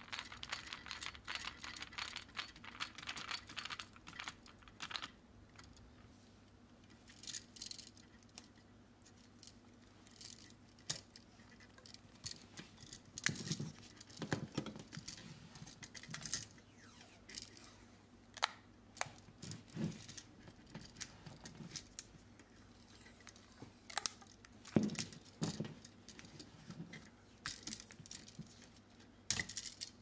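Quiet handling of a wall outlet: fine crackling clicks for the first few seconds, then vinyl electrical tape being pulled off the roll and wrapped around the outlet's sides over the terminal screws. Scattered sharp clicks and a few light knocks come from the outlet and its metal strap being handled.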